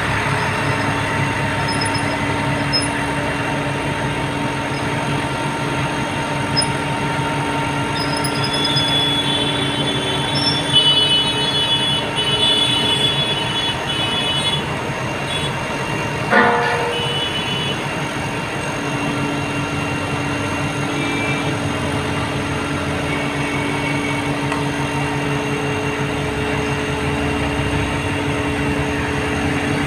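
Steady heavy mechanical drone with high squealing tones between about 9 and 15 seconds in, and one sharp metallic clank at about 16 seconds.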